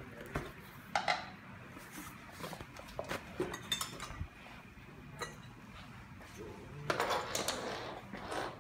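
Unpacking a cardboard box by hand: scattered clicks and knocks as a screwdriver slits the packing tape and the box is handled, light metallic clinks, then a longer, louder rustle of cardboard and packaging near the end as the box is opened.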